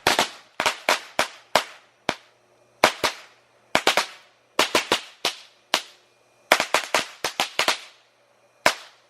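Firecrackers going off in an irregular string of about thirty sharp bangs, many in quick clusters, with a pause and one last bang near the end.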